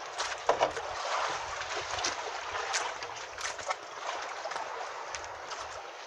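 Water sloshing and trickling against the hull of a small boat with bamboo outrigger poles, with a few short clicks and knocks of gear on the boat.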